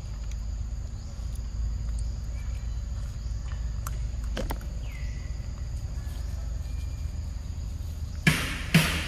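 Forest ambience: a steady high insect drone over a low rumble, with a few faint clicks around the middle. Rhythmic music comes in near the end.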